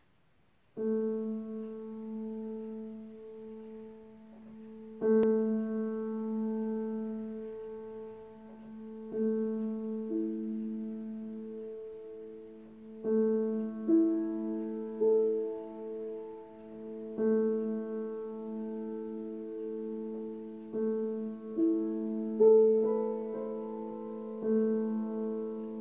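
Solo piano improvisation: slow, sustained chords struck about every four seconds and left to ring and fade, starting about a second in.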